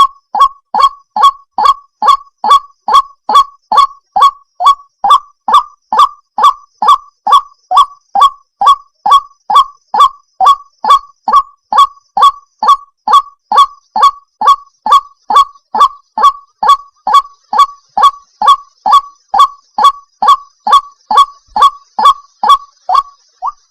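White-breasted waterhen (ruak-ruak) calling: one short falling note repeated evenly, a little over twice a second, without a break.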